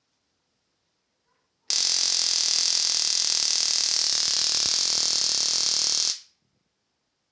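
Homemade high-voltage shock device arcing at its probe tip: a loud, steady electric buzz that starts about two seconds in, holds for about four seconds and cuts off. The device is built to scare dogs away with this sound.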